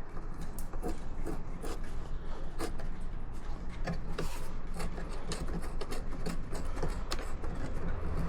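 Hands repositioning and tightening a camera clamp on a motorcycle: a run of irregular clicks, scrapes and rubbing under a steady low hum.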